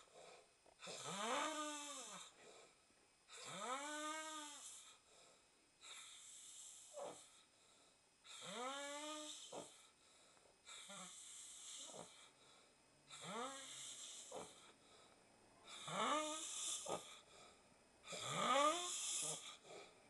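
A man snoring in his sleep, one breathy snore about every two and a half seconds. Each snore carries a pitch that rises and then falls, and the snores alternate between louder and softer.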